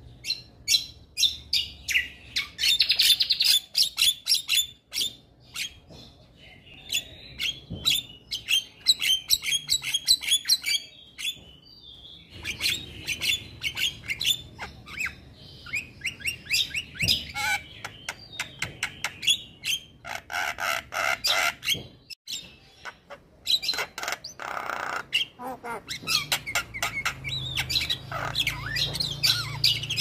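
Male Javan myna (jalak kebo) singing a long, varied chatter of rapid clicks, chirps and short whistles in quick runs with brief pauses. Two harsh squawks break in late on.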